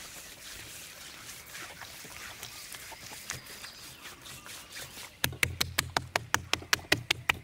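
A knife chopping rapidly on a wooden cutting board, about six even knocks a second for two seconds, starting about five seconds in, over a faint steady hiss.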